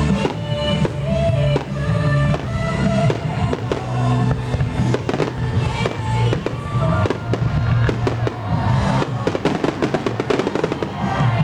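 Fireworks finale: a rapid run of firework bursts and crackles, coming thickest in the second half, with music playing underneath.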